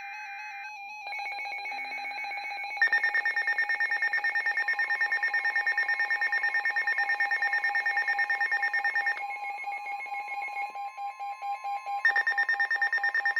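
Weather radio receiver sounding an alert ahead of a newly issued severe thunderstorm warning: a rapidly pulsing electronic alarm over steady tones, with a steady alert tone underneath. The pulsing stops about nine seconds in and starts again briefly near the end.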